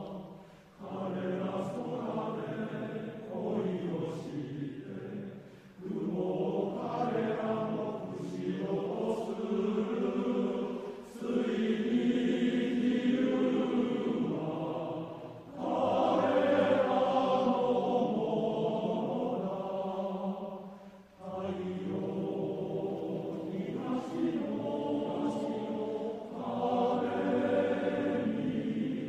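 Men's choir singing in long phrases, separated by brief pauses about a second in, near six seconds, around fifteen seconds and about twenty-one seconds in; the fullest, loudest passage comes in the middle, shortly after the third pause.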